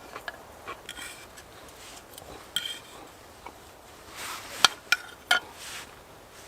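Eating utensil clinking and scraping against a dish while someone eats, in scattered short strokes with a few sharper clinks near the end.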